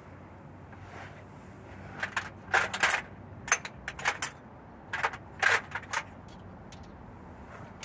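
Metal sockets and hand tools clinking and clicking as they are picked through and handled: a cluster of short, sharp, irregular clinks from about two to six seconds in.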